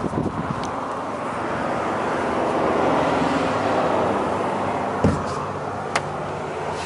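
Steady vehicle rumble that swells and fades around the middle, like a vehicle going past, with a few dull knocks and one sharp click about six seconds in.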